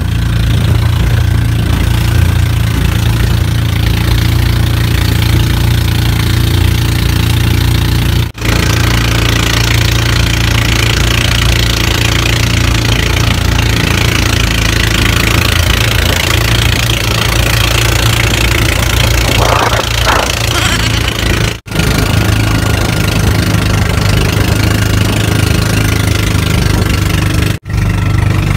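Small engine of a motorized outrigger fishing boat running steadily under way, a constant low drone with wind and water hiss over it. The sound drops out briefly three times.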